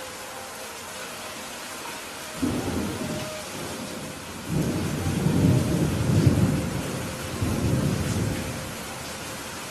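Steady rain falling, with thunder rumbling in about two seconds in and swelling into a longer, louder rolling peal that dies away near the end.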